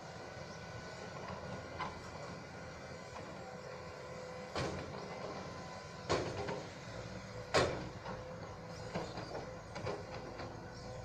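Heavy earthmoving machinery running with a steady diesel engine hum, broken by several sharp knocks and clanks, the loudest about two-thirds of the way in.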